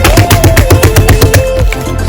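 Background pop music with a fast, crisp clicking beat over a low bass line.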